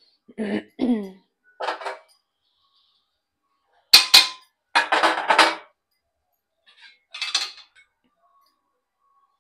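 Dishes and utensils clanking in short bursts as they are handled, with the loudest clatter about four to five seconds in and another burst near the end.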